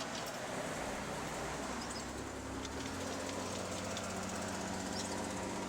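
Steady road-traffic noise with the hum of a vehicle engine.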